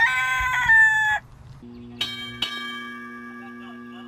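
A rooster crowing, its call ending about a second in; then, more quietly, bell-like chimes strike twice over a low steady drone and ring on.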